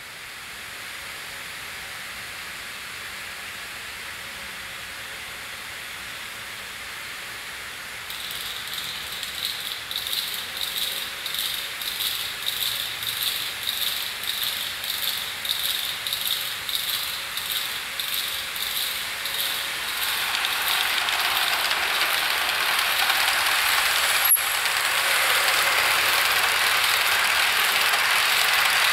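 HO scale model freight train rolling along the track: a steady hiss at first, then a rhythmic clicking about twice a second from about eight seconds in, growing into a louder, denser rattle of wheels as the hopper cars pass close through the double crossover, with one sharp click late on.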